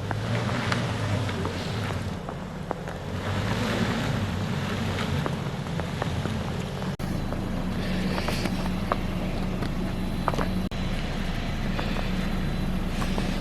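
A vehicle engine running steadily, with wind rushing over the microphone.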